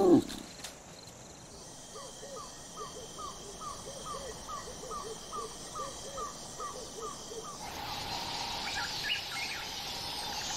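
A lion's short growl falls away right at the start. Then comes the wild ambience of the African bush at night: a faint steady insect drone and a short call repeated about three times a second, with lower hooting notes beneath it. About eight seconds in, the ambience changes to a brighter hiss with a few scattered bird chirps.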